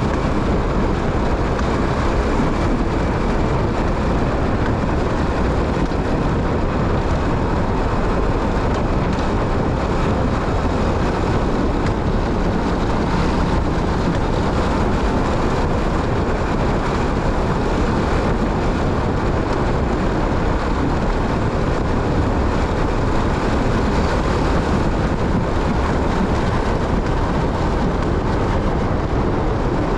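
Steady running noise of a motorcycle under way, engine and road noise blended into an even rush with no changes.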